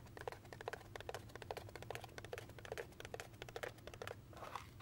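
A McDonald's Chicken McNuggets paperboard carton being handled and opened close to the microphone: a quick, irregular run of faint crinkles and crackles of paper and cardboard, a little fuller near the end.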